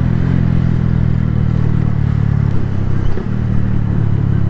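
Suzuki Gixxer 150 Fi's single-cylinder engine running with a steady note while the motorcycle is ridden, over road and wind noise.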